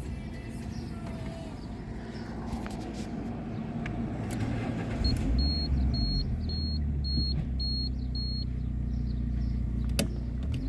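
Fiat Bravo 1.6 dashboard warning chime beeping about seven times, roughly twice a second, after the ignition is switched on with the engine hot. A steady low hum comes in strongly just before the beeps begin.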